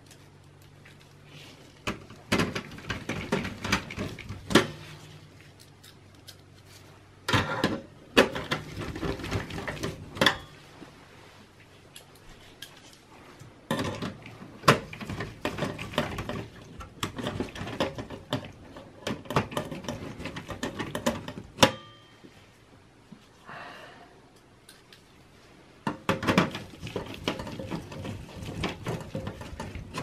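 Screwdriver driving motherboard screws into the steel chassis of a Dell Optiplex small-form-factor PC: irregular clusters of small metal clicks, scrapes and clatter with short pauses between them.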